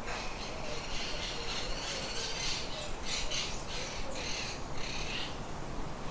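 Birds calling in a quick run of short, noisy calls, bunched from about one second in until shortly after five seconds.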